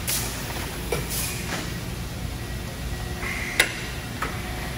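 Factory-floor ambience: a steady low rumble with a few scattered metallic clanks and knocks, the sharpest about three and a half seconds in.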